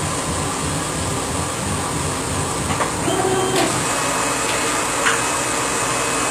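Laser engraver's head rastering back and forth with a rhythmic low motor pulse over the steady hiss of the air assist; about three seconds in the rastering stops and a brief motor whine follows as the engraving job finishes.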